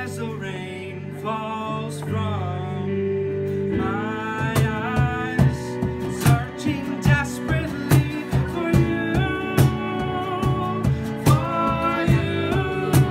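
Live acoustic band: a man sings over strummed acoustic guitar and held keyboard chords. About four seconds in, a cajon joins with a steady beat.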